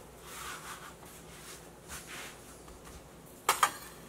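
Soft rubbing and shuffling of biscuit dough being handled on a floured countertop, then a sharp double knock of a hard object on the counter about three and a half seconds in.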